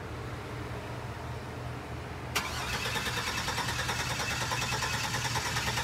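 A pickup truck's starter motor cranking the engine, starting suddenly a couple of seconds in with a fast, even chatter; the engine turns over without firing, a no-start the crew puts down to no spark.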